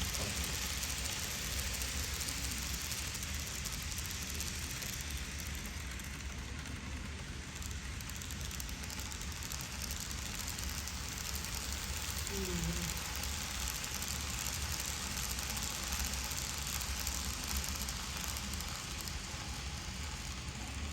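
Steady rolling hiss and rumble of N gauge model trains running on the layout, over a low room hum, with a brief faint voice about halfway through.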